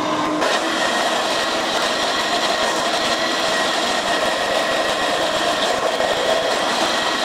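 Makera Carvera Air desktop CNC milling a relief: the spindle's steady whine and the cutting noise over the even rush of the shop vacuum drawing chips through the dust shoe. The sound settles into this steady state about half a second in.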